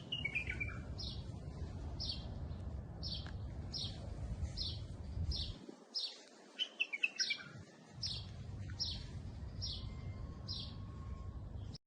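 A bird repeating a short, high call evenly, about one and a half times a second, with a few quicker falling chirps at the start and again about halfway through, over a low background rumble.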